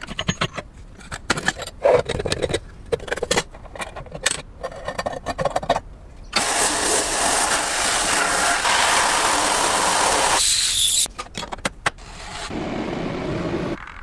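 Metal parts being handled, with irregular clicks and knocks. About six seconds in, a steady machine noise starts, like a power tool working on the metal, and cuts off suddenly after about four seconds. After a few more clicks, a softer steady machine noise comes in near the end.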